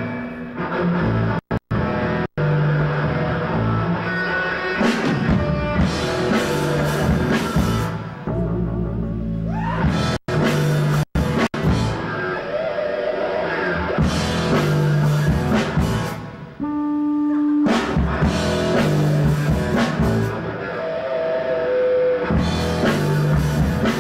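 Three-piece rock band playing live: electric bass, electric guitar and drum kit. The sound cuts out for a split second several times.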